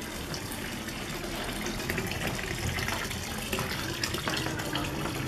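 Steady sound of running water, with small clicks and clatters scattered through it.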